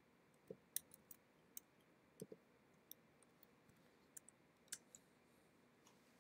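Faint, irregular clicks of computer keys and a mouse button, about a dozen in all, as a command is copied, pasted into a terminal and entered.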